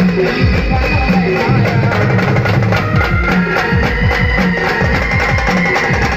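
Band music in an instrumental passage: a busy, steady drum and percussion beat under a sustained melody line, with no singing.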